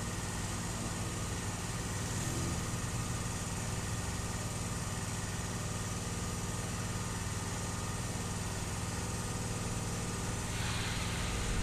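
A steady mechanical hum at an unchanging pitch, like an engine idling.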